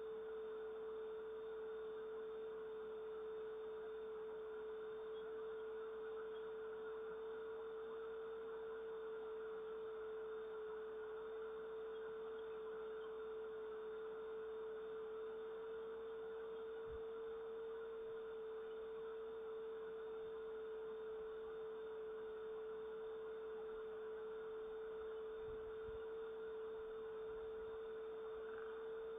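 A steady pure tone a little below 500 Hz, held without a break or change in pitch, over a faint even hiss.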